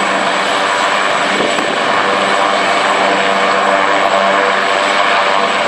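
AgustaWestland AW139 helicopter running on the ground before take-off, its twin turboshaft engines and main rotor going steadily, with a thin high turbine whine over the rotor noise.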